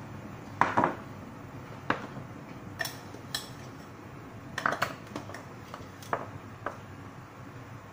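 A metal spoon clinking irregularly against a ceramic bowl while coconut milk is stirred with salt.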